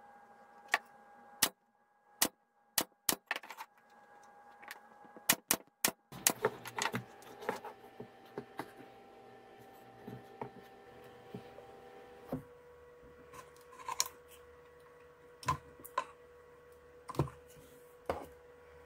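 Wooden RC boat parts handled by hand: a run of sharp knocks and taps in the first six seconds, then scattered clicks and light rattles as the wooden hull and its fittings are moved about.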